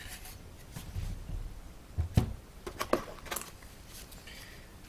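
Handling noises on a desk as a small computer is moved and a paper booklet is taken from its cardboard box. A dull thump comes first, then a sharp knock about two seconds in and a quick cluster of clicks about a second later.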